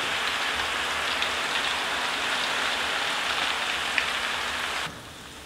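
Shredded potato strands deep-frying in a large steel wok of hot oil: a loud, dense, even sizzle as the freshly rinsed and drained strands go into the oil. It stops abruptly near the end.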